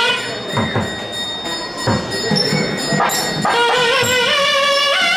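Carnatic music. A gliding melodic instrument line pauses while a few low drum strokes and a steady high ringing sound, then the melody comes back in about three and a half seconds in.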